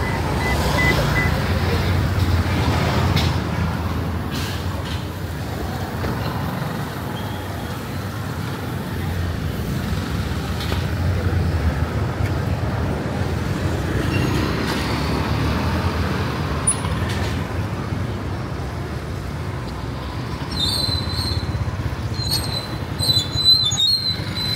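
Busy city street ambience: a steady mix of traffic noise from passing vehicles. A few short high-pitched chirps come in near the end.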